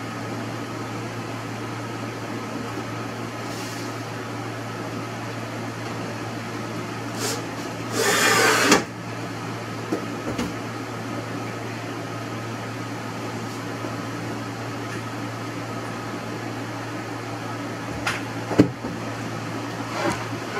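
Steady low machine hum in the workshop, with a few light knocks from plywood being handled and one brief scraping rush about eight seconds in, the loudest sound.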